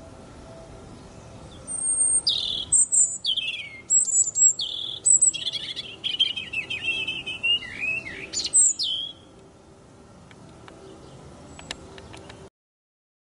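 European robin singing one phrase of high, thin, varied notes, squeaks and short descending trills, starting about two seconds in and lasting about seven seconds.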